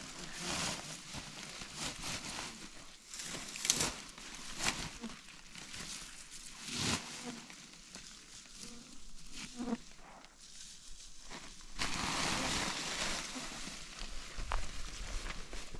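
Dry straw crackling and rustling as it is pressed by hand into a woven plastic sack, with short crunches and the sack material crinkling. About twelve seconds in comes a longer, louder rustle as the full sack is hoisted.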